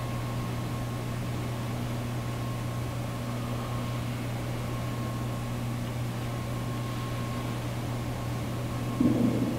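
Steady low hum with an even hiss and a faint thin high tone: the constant background noise of the room and sound system. A short louder sound comes near the end.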